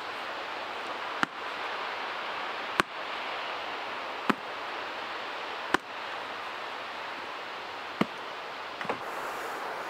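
Sharp knocks, six of them, roughly every one and a half seconds, over a steady rushing hiss.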